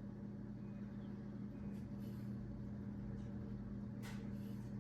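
Steady low electrical or mechanical hum in a garage, holding several fixed pitches without change, with a faint short scrape about four seconds in.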